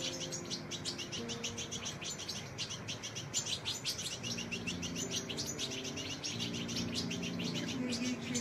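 A flock of European goldfinches chirping in a rapid, continuous run of short high twitters, several a second.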